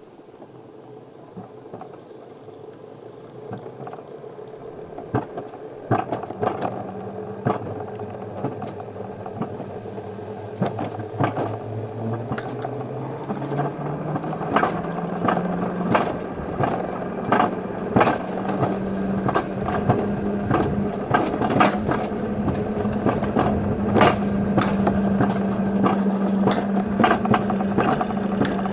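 Wiegand alpine coaster sled running along its tubular steel rail: a hum that rises in pitch over several seconds and then holds steady, with sharp clacks coming thicker and louder as it gathers speed.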